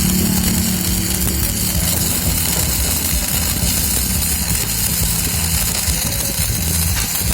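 Electric arc welding, a steady crackling hiss.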